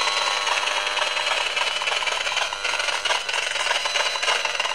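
EMFields Acousticom 2 RF detector's speaker giving a continuous howling, clicking buzz of rapid fine crackles, sounding the pulsed radio-frequency signal it picks up while its meter reads near the top of its scale. The user takes the signal for a directed-energy beam aimed at her head.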